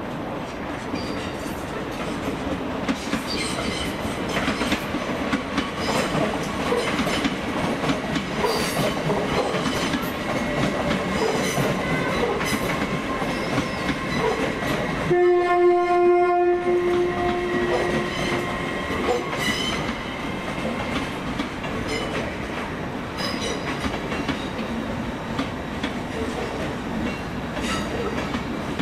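Passenger train running, its wheels clicking over rail joints, with one horn blast of about two seconds about halfway through.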